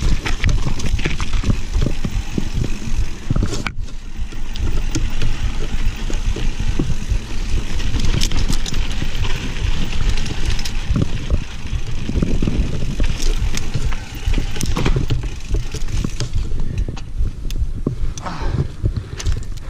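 Mountain bike ridden down a rocky trail: wind buffeting the camera microphone, tyres crunching over rock and gravel, and many sharp rattles and knocks from the bike over bumps. The hiss thins out near the end as the bike slows almost to a stop.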